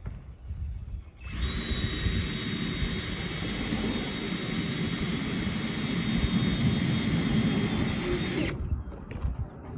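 Cordless drill running steadily for about seven seconds with a faint high whine, switching on about a second in and off near the end.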